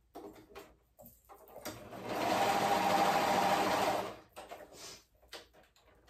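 Sewing machine stitching in one steady run of about two seconds, picking up speed as it starts and stopping shortly after: top-stitching the folded edges of a small fabric pocket. Light clicks and handling sounds come before and after the run.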